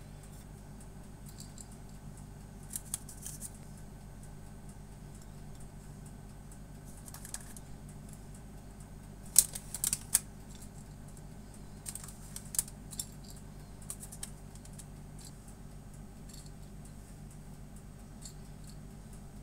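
Scattered small clicks and taps of chocolate chips being picked out of a glass dish and set onto soft cookie dough, with a quick cluster of louder clicks about halfway through, over a steady low hum.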